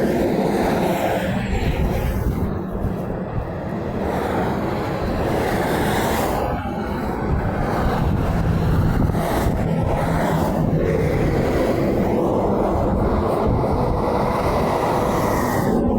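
Steady low rumble of semi-truck traffic on a highway, with no horn sounding.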